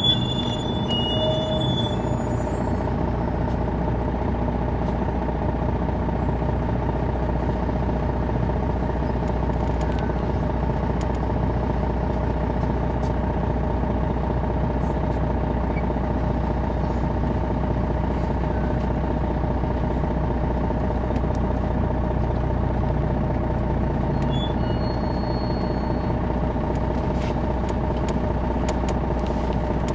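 Detroit Diesel Series 60 engine of a 2001 MCI D4000 coach running steadily, heard from on board the bus, with a low drone and a steady whine that hold unchanged.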